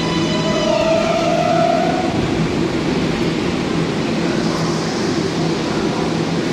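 A departing R142A subway train's electric motor whine fading out and falling in pitch over the first two seconds, leaving a steady low rumble and hum in the station.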